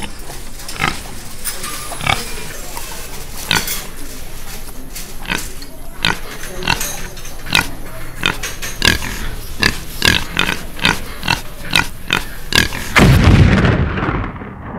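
Cartoon eating sound effects: a quickening string of greedy chomps and gobbling noises, then a loud low boom about thirteen seconds in.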